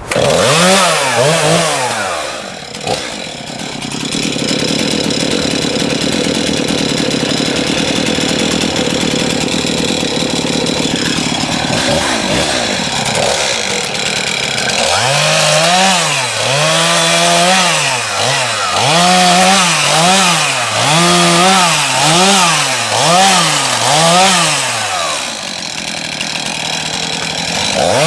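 Gas chainsaw cutting wood: a steady run under load in the cut, then the engine revved up and down over and over, about once a second, through the second half.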